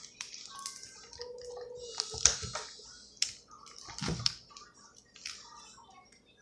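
Slime being squished and poked by hand: scattered soft wet clicks and squelches at irregular intervals.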